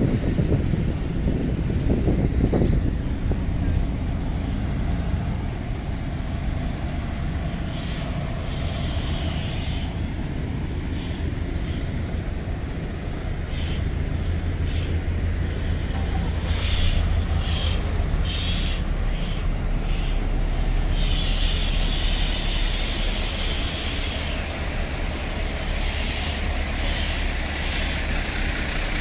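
City buses idling at close range, a steady low diesel rumble that grows heavier midway, with short air hisses now and then. Wind buffets the microphone in the first few seconds.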